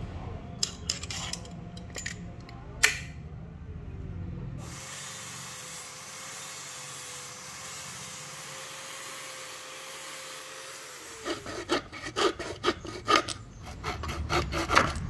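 A few light clicks and knocks of thin wood strips being handled, with a sharp snap about three seconds in. Then a power sander runs steadily on the wood for about six seconds and winds down, followed by a hand saw cutting the wood in quick even strokes, about three a second.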